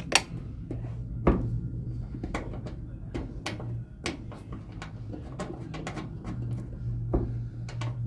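Irregular clinks and knocks of a socket wrench, bolts and a metal antenna bracket being worked at a car's bonnet hinge, a few a second, the loudest about a second in, over a steady low hum.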